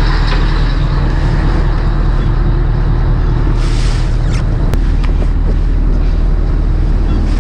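Fishing boat's engine running steadily with a constant low hum. A short rush of hiss comes a little past halfway, and a couple of light clicks follow.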